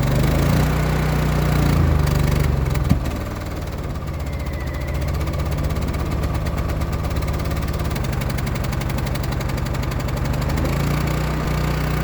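Generator engine running just after a hard cold start in −25 °C cold. Its pitch shifts a few times in the first three seconds, with a single click about three seconds in, then it runs steadily.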